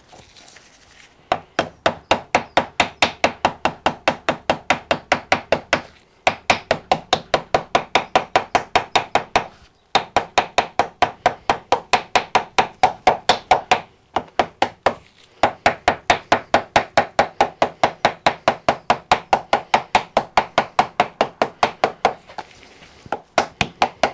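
Small ball-pein hammer tapping rapidly and evenly on steam jointing paper laid over a steam engine's cylinder block, in long runs with a few short pauses. The blows cut the paper against the block's edges and bore, tapping out a cylinder gasket.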